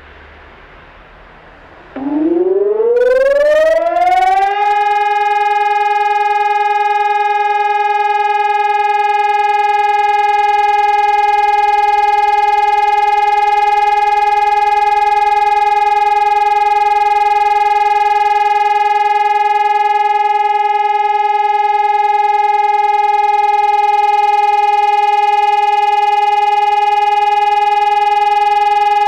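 Electronic high-performance civil-defence siren sounding the all-clear (Entwarnung). About two seconds in, its tone starts and rises in pitch for a few seconds, then holds one steady, unbroken tone.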